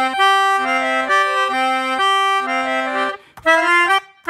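Melodica blown through its flexible mouthpiece tube and played with both hands: a held upper note over a lower note that alternates between two pitches, breaking into short detached chords near the end.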